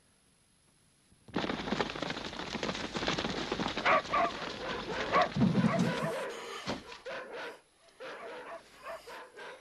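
A sudden commotion of a group of men rushing up: many running footsteps and scuffling, starting about a second in, with a few short sharp cries over it, easing off after about five seconds.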